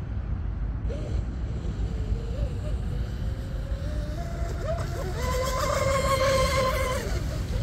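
Twin-motor RC speedboat at full speed on the water: its motors give a whine that rises and wavers, then swells into a loud, steady high-pitched whine as the boat passes closest, and fades near the end. A low rumble of wind on the microphone runs underneath.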